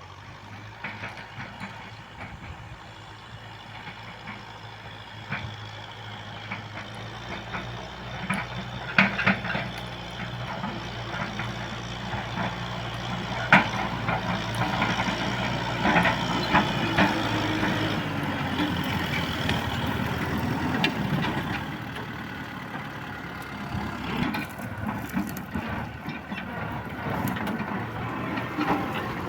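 Kubota M6040S tractor's diesel engine running steadily while ploughing a rice field, growing louder as it comes closer, with frequent sharp clanks and rattles.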